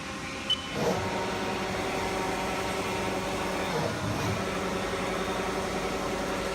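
Haas SL-10 CNC lathe running: a steady machine hum made of several tones. A short high beep comes about half a second in, and swelling sweeps in pitch come about a second in and again near four seconds.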